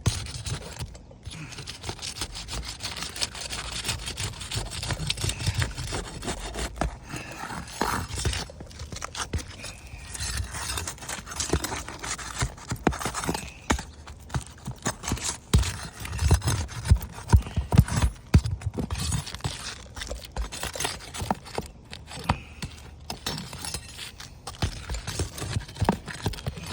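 Asphalt roof shingles being pried up to break their seal: repeated scraping against the shingle surface with many sharp cracks and snaps as the brittle, non-pliable shingles break.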